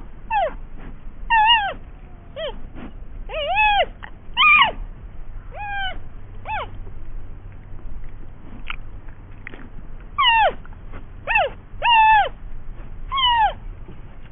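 Giant panda cub calling: a string of short, high, squeaky calls, each rising and then dropping in pitch, coming in irregular clusters with a lull in the middle.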